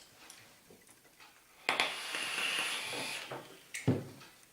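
Air hissing through an e-cigarette atomizer for about a second and a half as someone takes a draw, with a faint whistle in it, followed by a short low thump near the end.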